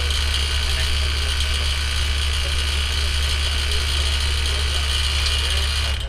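Air-conditioning condensing unit running during a refrigerant pump-down: the compressor's steady low hum with fan and airflow noise, pulling the suction side toward zero. It cuts off abruptly at the very end.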